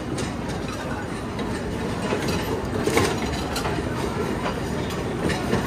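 Steady background din of a busy buffet restaurant, with a metal clink about three seconds in as serving tongs lift pancakes from a steel pan.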